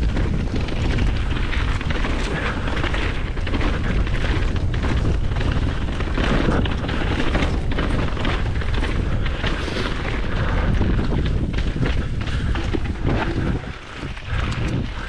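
Strong wind buffeting the microphone of a mountain bike riding camera, a steady loud noise heavy in the low end, dropping briefly in loudness near the end.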